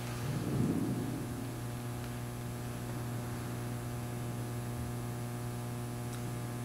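Steady low electrical hum with overtones over faint hiss, with a brief soft swell of sound about half a second in.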